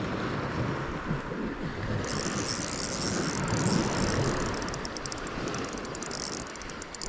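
A steady rush of wind and sea surf. About two seconds in a higher hiss joins it, and from around halfway a fast, irregular high clicking rattle joins as well.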